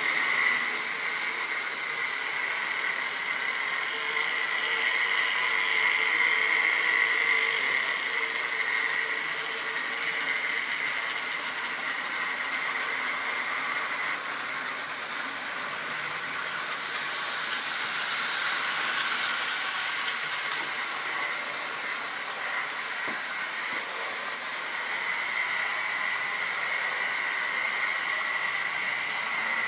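OO gauge model train running round the layout: the locomotive's small electric motor whining steadily over the hiss of wagon wheels rolling on the track, the whine growing stronger and weaker as it goes.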